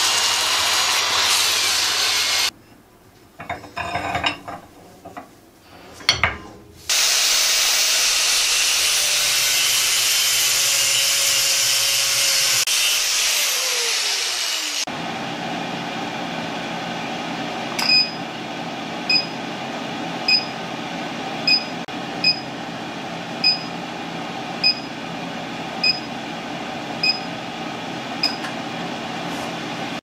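Abrasive cloth sanding a steel bar spinning in a lathe, a loud steady rasping. A short break with a few knocks falls in the first few seconds. The lathe winds down with a falling whine about halfway through. After that an induction heater hums steadily around the bar in its copper coil, with short regular ticks about every second.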